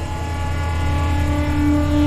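Suspense ambience sound effect: a low, rapidly pulsing drone with held eerie tones above it, growing louder.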